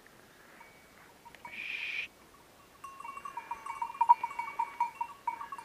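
A hunting dog's collar bell rings in a rapid, uneven jangle from about three seconds in as the dog moves through the undergrowth, after a brief rustle of brush.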